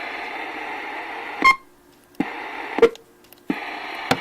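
RCI 2980WX radio keyed and unkeyed with its stock hand mic: each keying brings a burst of steady radio hiss that ends in a sharp pop, twice over, with a third burst starting near the end. The pop on transmit is the fault the owner is trying to cure.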